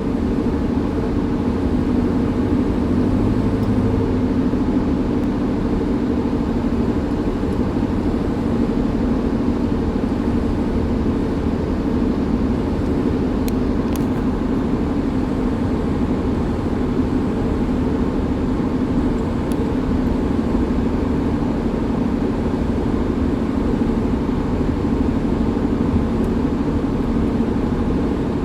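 Hyundai Tucson driving with a steady, continuous drone over the road noise: the sound of a bad wheel bearing.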